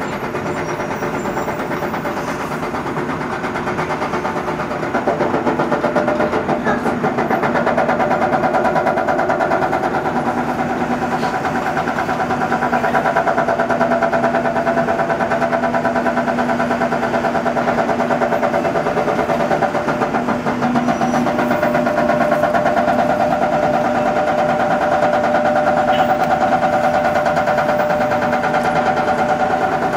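Cat M315C wheeled excavator's diesel engine running under working load while digging, with a steady whine over the engine note. It grows louder about five seconds in and holds there.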